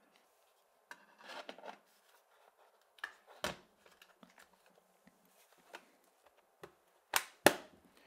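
Battery and aluminium bottom access panel of a Late 2008 MacBook being fitted back in by hand: soft sliding and rubbing, then a few sharp clicks, the loudest a close pair near the end as the panel is pressed shut.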